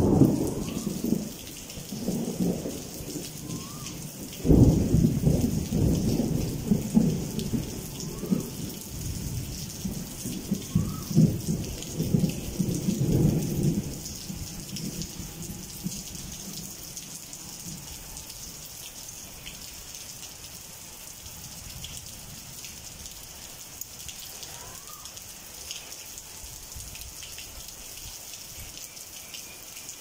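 Steady rain falling, with thunder rolling over it. The thunder starts suddenly at the start and again about four and a half seconds in, rumbles on for about half the time, then fades away, leaving the rain alone.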